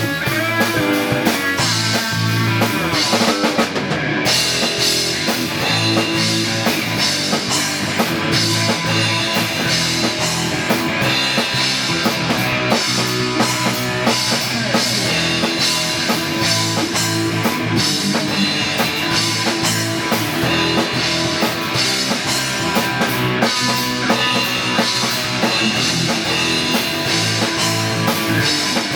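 Rock music with drum kit and guitar playing at a steady beat.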